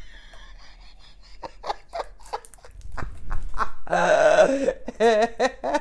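A woman laughing in short breathy bursts, ending in a few quick voiced "ha" pulses, with a run of soft clicks about a second and a half in.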